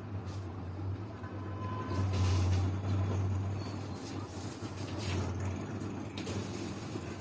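A low rumble that swells about two seconds in and eases off again, with a few light scratches of a felt-tip marker colouring on paper.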